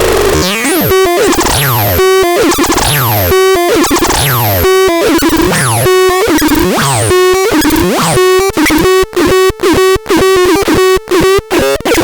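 DAZAX synthesizer playing a repeating pattern of sweeping, warbling pitches, a falling whoop roughly every second and a quarter over a steady held note. From about eight and a half seconds in, the sound is chopped into rapid stuttering pulses.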